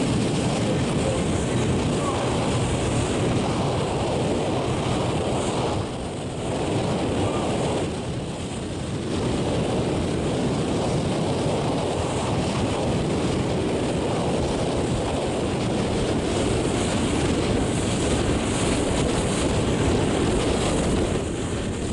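Steady wind buffeting the microphone with water rushing and splashing, as heard from a boat under way on open sea. The noise eases briefly about six and again about eight seconds in.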